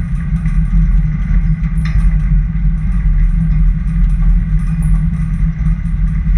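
Steady low rumble of a car under way, engine and road noise.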